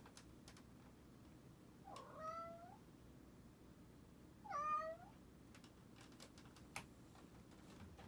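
A pet cat meowing twice in the dark, about two and a half seconds apart, each call dipping and then rising in pitch, the second louder. A few faint clicks follow, with a sharper one near the end.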